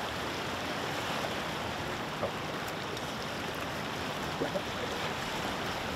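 Steady rush of flowing river water, with a couple of faint short sounds about two and four and a half seconds in.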